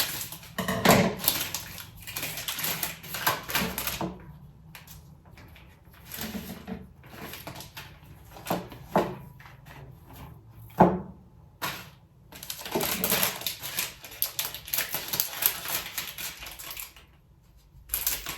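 Kitchen handling noises as cooking ingredients are set out: rustling and clattering, with a few sharp knocks.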